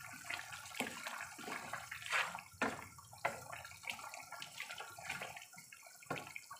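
Thick tomato-based goat stew with potatoes bubbling as it simmers in a pan while a wooden spatula stirs through it, with irregular pops, clicks and knocks over a steady wet hiss.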